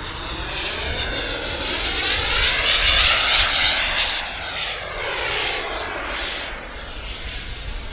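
Kingtech K45 turbine of an A-10 Warthog RC jet model in a flypast: a jet whine and hiss that builds to its loudest about three seconds in, then fades as the model moves away.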